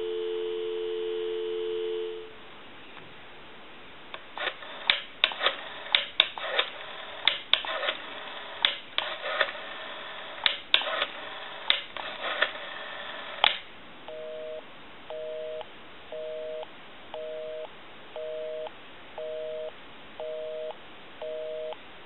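Telephone dial tone, a steady two-tone hum, stops after about two seconds. A candlestick telephone's rotary dial is then wound and let run back several times, clicking out the digits, for about ten seconds. A busy signal follows, beeping about once a second, which shows the number was dialled correctly and the line is engaged.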